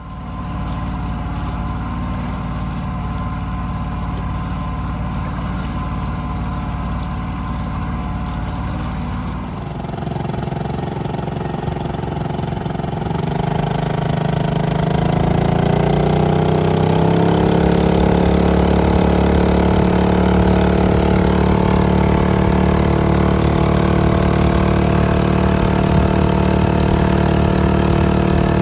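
Honda 2.3 hp air-cooled four-stroke single-cylinder auxiliary outboard running, pushing the boat on its own. About halfway through its note rises over a few seconds as it is throttled up, then holds steady and louder at full throttle.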